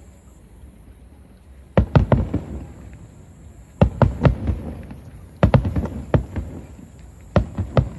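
Aerial firework shells bursting in volleys. About two seconds in, four clusters of sharp bangs begin, each a rapid string of reports, roughly two seconds apart.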